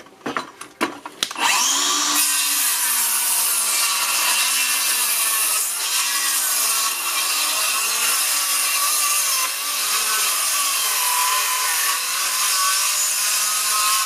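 A few knocks, then a Milwaukee circular saw spins up about a second and a half in and runs steadily as it cuts across a pallet's wooden deck boards.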